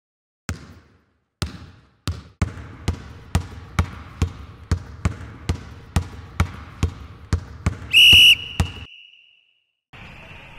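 Basketball bouncing on a hard floor: three slow bounces, then steady dribbling at about two bounces a second, cut off by a short, loud referee's whistle blast about eight seconds in. After a second of silence, steady gym ambience comes in near the end.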